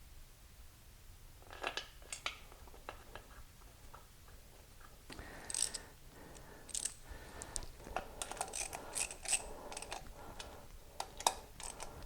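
Scattered light metallic clicks and clinks of stainless intake-manifold bolts and hand tools being handled and started into the aluminium intake, coming more often in the second half.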